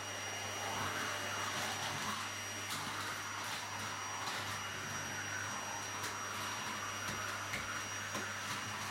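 Vacuum cleaner running steadily: a constant motor whine over rushing air, with a few faint light knocks scattered through.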